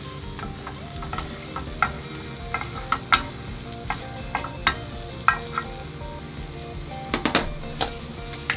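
Metal spatula clicking and scraping against a square tamagoyaki pan as a rolled egg omelet is pushed along it, over light sizzling; about a dozen sharp taps, with a quick cluster near the end.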